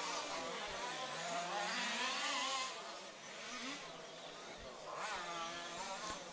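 Small two-stroke petrol engines of large-scale off-road RC buggies buzzing as the cars race, several at once, their pitch rising and falling as the drivers work the throttle. The sound is a little quieter for a second or so midway.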